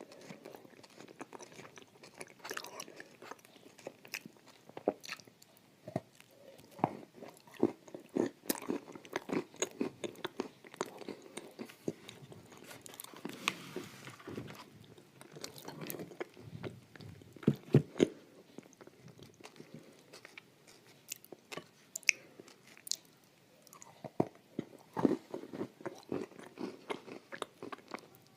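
Close-up chewing and biting on crunchy food, with irregular wet mouth sounds and crisp crunches; a few louder crunches come about two-thirds of the way through.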